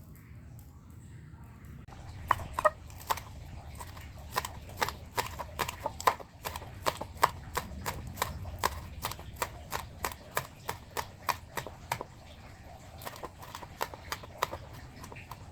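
Knife chopping vegetables on a cutting board, steady knocking strokes at about three a second that stop for a moment about twelve seconds in and resume briefly near the end.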